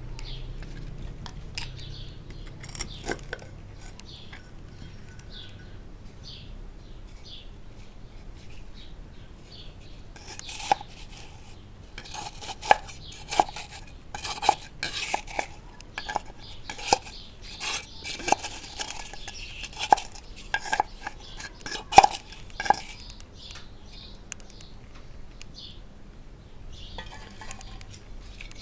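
Metal objects clinking and clanking together: a run of sharp strikes, each with a short ring, coming thick and irregular through the middle of the stretch.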